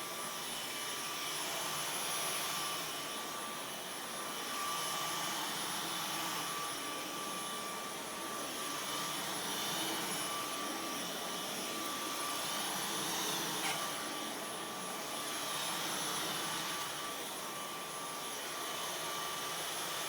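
Dyson V11 Absolute cordless stick vacuum running with its carpet head: a steady high motor whine over a rushing airflow hiss, swelling and easing slightly in level.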